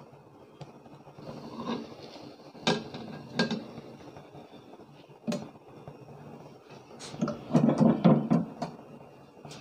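A plate and a non-stick frying pan knocking together as a half-cooked omelette is slid from the plate back into the pan to cook its other side: three sharp knocks, then a louder bout of clattering near the end.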